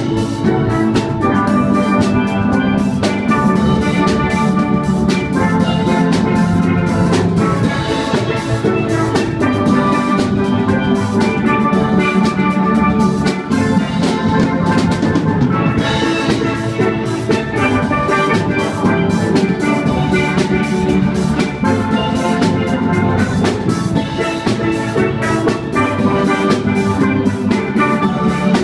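A school steel pan band playing a tune live, with drum kit keeping the beat.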